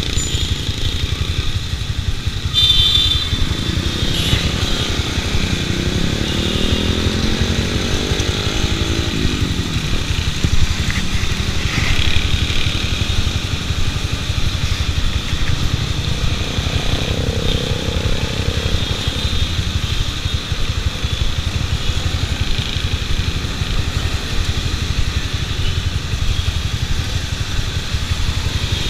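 Bajaj Pulsar 200 DTSI's single-cylinder engine running steadily at idle among passing motorcycle traffic. Between about three and ten seconds in, an engine note rises and falls in pitch.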